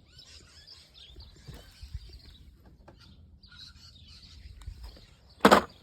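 Birds chirping faintly in the background, with one short, loud knock about five and a half seconds in.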